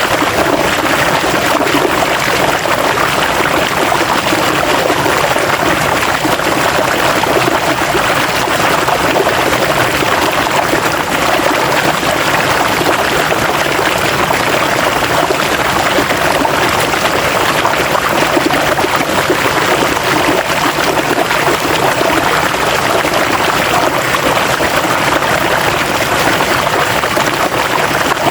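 River water flowing over rocks, a steady rushing and burbling.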